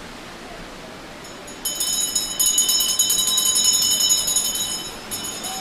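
Small temple bell rung rapidly and repeatedly: a bright, sustained metallic ringing that starts about a second and a half in, breaks off briefly near the end and starts again.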